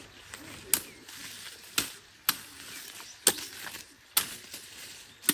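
Machete chopping at a thin mwiri branch held in the hand: about six sharp, separate strikes, irregularly spaced about a second apart.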